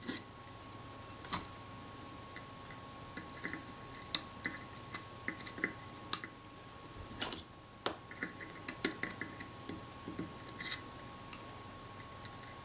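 Light, irregular metallic clicks and taps of steel tweezers picking up small screws and setting them down on a metal camera body, with a few louder clinks about seven to eight seconds in. A faint steady high tone runs underneath.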